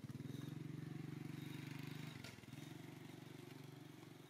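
A small engine running with a steady, low, pulsing drone. It dips briefly a little after two seconds in, picks up again and fades near the end.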